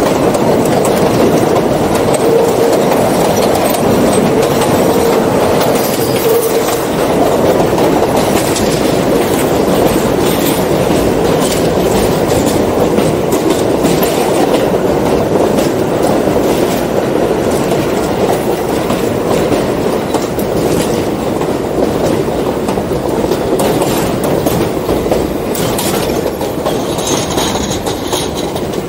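W subway train running along elevated steel track: a steady rumble of wheels on rail with irregular clicks over the rail joints. A brief high-pitched squeal comes near the end.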